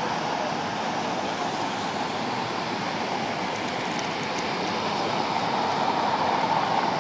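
Steady noise of road traffic, an even hiss and hum without distinct events.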